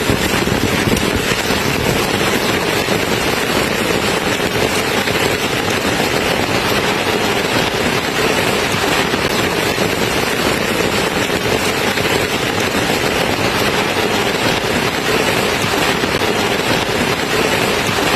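Steady rain falling without a break: a dense, even hiss of drops with no thunder.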